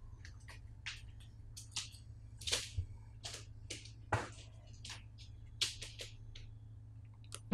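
A string of irregular small clicks and taps, a few of them sharper and louder, over a low steady hum.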